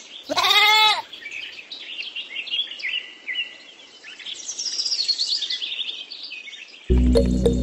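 One loud bleat in the first second, rising and falling in pitch, then birds chirping and singing. Background music comes back in near the end.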